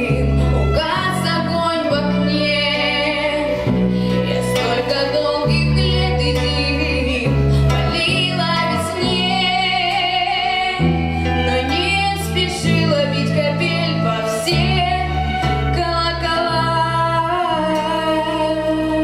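A woman singing a Russian pop song over instrumental accompaniment, with bass notes that change every second or two.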